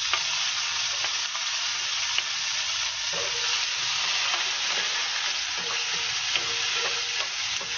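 Sliced onion and garlic sizzling steadily in hot oil in a non-stick wok, stirred with a wooden spatula that taps and scrapes against the pan a few times.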